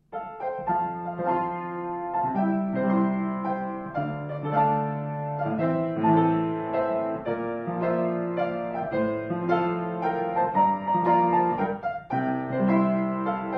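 Background piano music: held chords under a slow melody, starting suddenly at the beginning.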